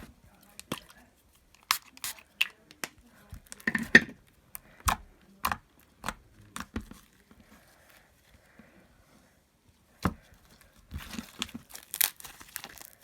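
Small homemade slime squished and stretched by hand, giving irregular sticky clicks and pops, with a pause of a few seconds past the middle and a busier run near the end.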